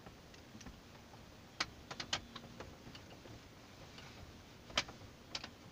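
A few faint, scattered clicks and taps from hands handling the plastic dashboard trim around a newly mounted car head unit, about half a dozen over several seconds.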